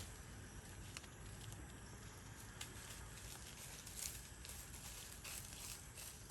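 Faint background with scattered light clicks and taps over a low steady rumble.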